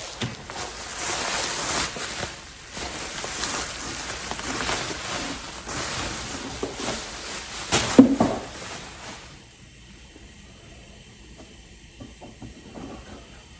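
Packaging rustling and crinkling as a coilover is pulled out of its box and wrapping, with one clunk about eight seconds in; the handling goes quiet shortly after.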